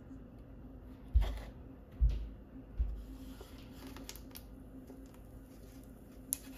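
Steady hum of an electric pottery wheel's motor, with three dull thumps in the first three seconds and a few light clicks later on.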